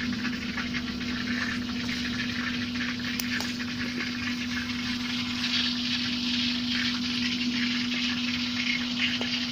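A steady mechanical hum of one constant pitch, with a hiss over it and light rustling of black nightshade leaves being picked by hand.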